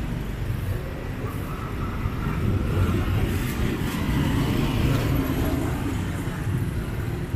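Street traffic: motorbike and car engines passing as a steady low rumble that swells in the middle.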